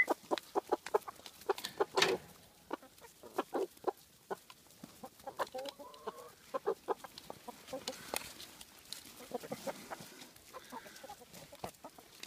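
Hens pecking at a tray of sprouted clover: a string of short, quick taps, with soft clucking now and then.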